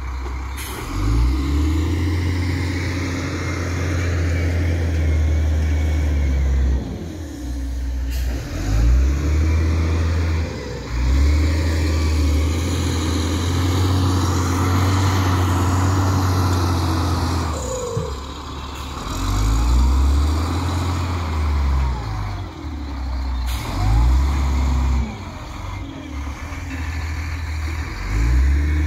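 Wheel loader's diesel engine running under load, revving up and dropping back several times, a few seconds at a time, as it pushes and dumps dirt.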